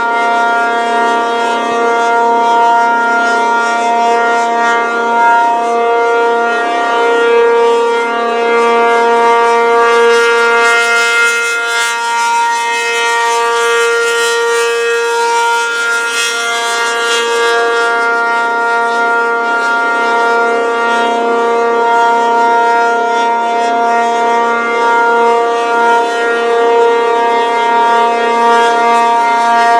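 ACA P-50 rotating outdoor tornado warning siren sounding a loud, steady wail held at full pitch. It swells and fades slowly as the rotating horn turns toward and away.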